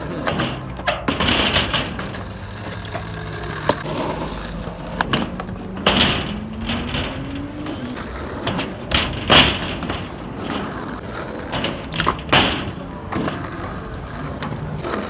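Skateboard rolling on rough asphalt: steady wheel noise broken every few seconds by sharp clacks and knocks of the board popping and landing, the loudest about six, nine and twelve seconds in.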